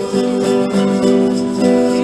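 Several acoustic guitars strumming chords together in a steady rhythm, an instrumental stretch of the song without singing.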